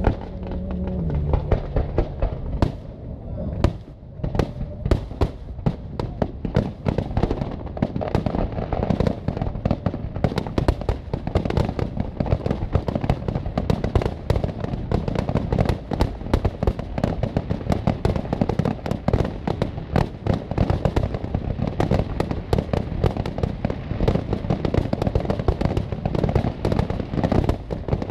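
Aerial fireworks shells bursting: a few separate bangs at first, then from about four seconds in a dense, nonstop barrage of bangs and crackle, several reports a second.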